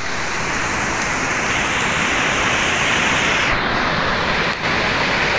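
Fast-flowing floodwater rushing: a loud, steady wash of water noise, with a brief dip about four and a half seconds in.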